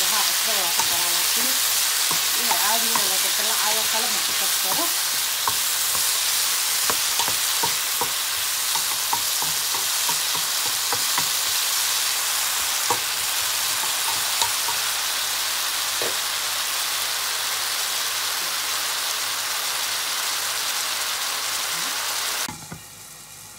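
Broccoli stir-frying in a hot nonstick pan: a steady sizzle with the scraping and tapping of a wooden spatula turning the florets. The sizzle drops off sharply near the end.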